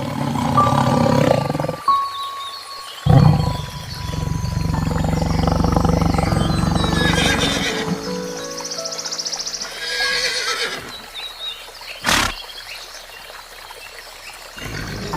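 Several different animal calls over background music, among them a long low call lasting several seconds about three seconds in, and a single sharp click near the end.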